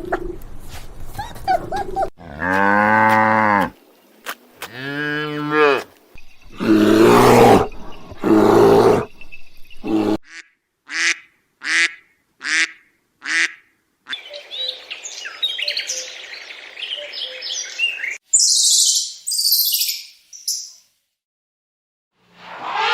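A succession of farm animal calls. First come two drawn-out, moo-like cattle calls that rise and fall in pitch, then two louder, rougher calls and a quick run of about six short calls. After that comes a stretch of chirping and a burst of high, shrill calls.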